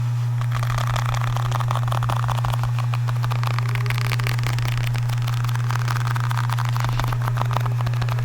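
Quick clicking and crinkling of objects handled close to the microphone, over a loud, steady low hum of background noise.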